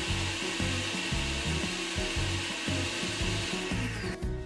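Haier countertop blender running at full speed, puréeing potatoes and mussels with their cooking water into a smooth cream. It is switched off about four seconds in and the motor noise stops abruptly.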